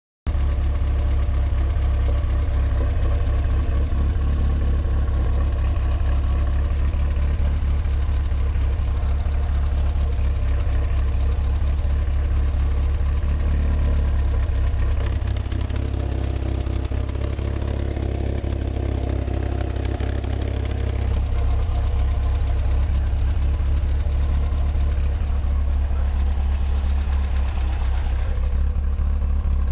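Car engine idling steadily, with a light tapping like drumsticks on a drum that falls right on the exhaust stroke.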